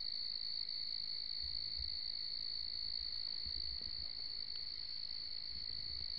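Summer-night insect chorus: a steady, unbroken high-pitched trill, with a weaker lower-pitched band beneath it. Faint low thumps come a few times.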